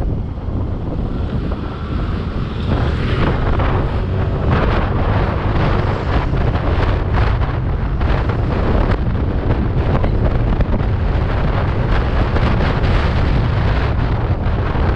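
Heavy wind buffeting on the microphone of a scooter ridden at around 60 to 70 km/h, with the scooter's running and road noise underneath.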